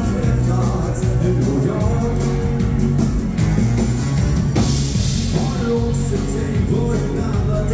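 Live dansband playing an upbeat rock'n'roll dance number over the hall's PA, with a steady driving beat.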